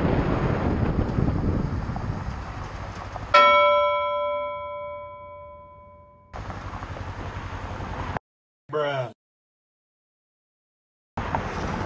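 Wind and engine noise from a motorcycle on the move. A little over three seconds in, a single bell-like ding strikes and rings out for about three seconds. Near the end the sound drops out entirely for about three seconds, broken by one short warbling blip, before the riding noise comes back.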